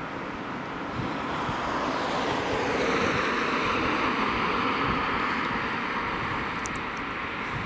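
A car passing close by on the road, its tyre and engine noise swelling to a peak about three seconds in and then fading away, with wind on the microphone.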